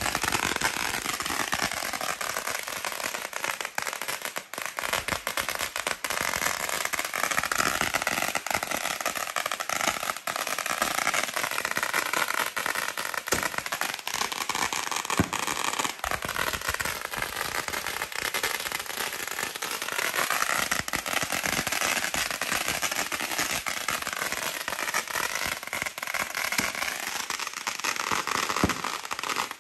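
A 10,000-round string of firecrackers going off in a continuous, dense rapid-fire crackle of bangs.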